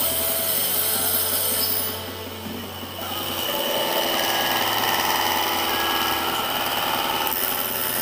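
Homemade mini circular saw, a small DC motor driving the blade by a belt, running steadily and cutting into a thin wooden sheet. The sound dips briefly about two seconds in, then the cutting noise grows rougher for several seconds.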